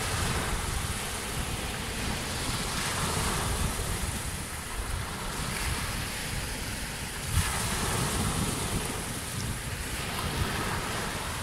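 Wind buffeting the microphone with a steady low rumble, over the even wash of surf on a sandy beach.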